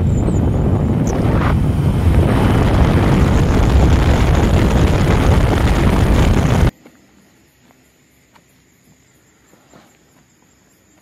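Heavy wind buffeting on the microphone mixed with road noise from riding motorcycles. It cuts off abruptly about seven seconds in, leaving a quiet stretch with a faint steady high tone and a few soft clicks.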